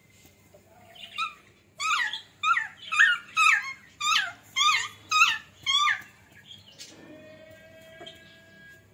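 Puppy yelping during rough play: about eight sharp, high yelps at roughly two a second, starting about two seconds in. Near the end a steady tone sets in.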